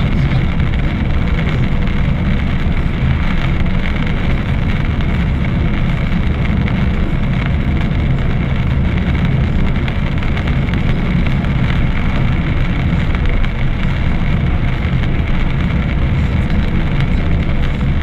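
Steady road noise inside a moving car: a low rumble of tyres and engine on a wet road, with rain on the windscreen.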